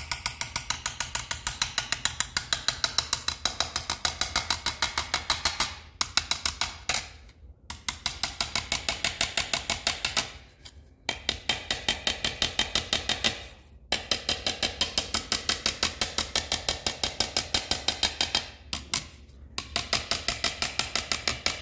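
Rapid light hammer taps on an aluminum seat molding, about five a second, in runs of a few seconds with short pauses: dents being tapped out of the trim.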